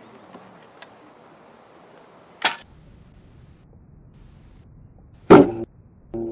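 Two sharp air-rifle shots about three seconds apart, the second the louder, followed near the end by a brief ringing sound.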